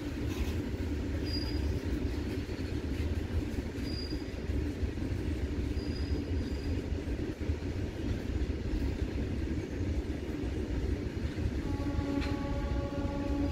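Loaded coal wagons of a freight train rolling past on steel rails with a steady low rumble. About two seconds before the end, a train horn starts sounding, a steady multi-note blast that carries on.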